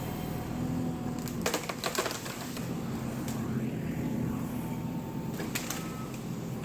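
JCB excavator's diesel engine running steadily, with several sharp clicks over it.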